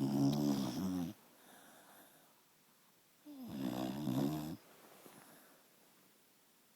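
Dachshund snoring: two snores, each just over a second long and about three seconds apart, with faint breathing between them.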